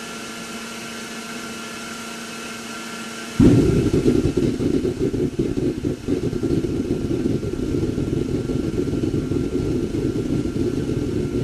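A gas-fired melting furnace's blower runs with a steady hum. About three and a half seconds in, the gas catches on the methylated-spirit igniter and the burner lights suddenly. It then burns with a loud, steady low rumble, on low gas and with no blowout.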